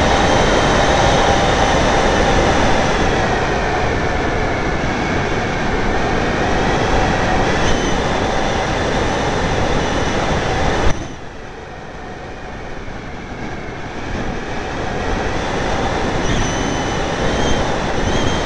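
Radio-controlled model aircraft in flight heard from its on-board camera: steady motor and rushing air noise with faint high whines. The sound drops sharply about eleven seconds in, then builds back slowly.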